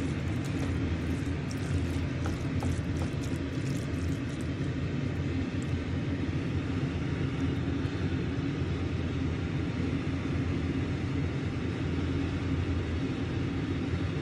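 Steady low mechanical rumble with no change in level, with a few light clicks of a spatula against the pan in the first three seconds.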